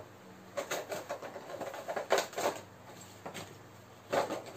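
Clear plastic blister tray and cardboard box of an action figure being handled: irregular crinkling and crackling, a run of it in the first half and another short spell near the end.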